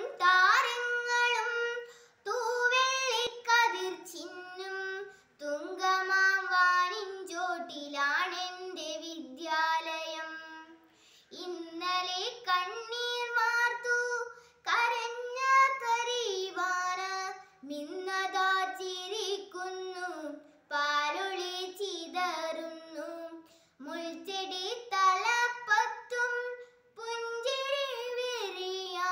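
A young girl singing solo and unaccompanied, in phrases of a few seconds each with short pauses for breath between them.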